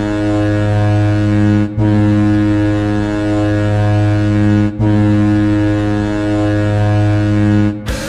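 Sarnia Sting goal horn: a deep, ship-style horn sounding in long, steady blasts, broken by short gaps about two and five seconds in, and stopping near the end.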